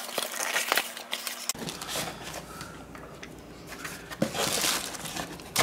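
Utility knife scraping and slicing through packing tape on a cardboard box, then cardboard flaps and plastic packaging rustling as the box is opened, loudest about four seconds in.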